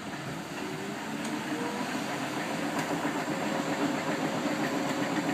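Bendix 7128 front-loading washing machine tumbling its wash, the motor running and water flapping and sloshing at the bottom of the drum, gradually growing louder. The owner puts the flapping down to a lip on the new door seal kicking the water back into the drum.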